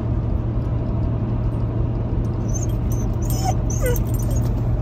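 A dog whining in a few short, wavering whimpers over the last second and a half, over the steady low hum of a pickup truck's cab on the move.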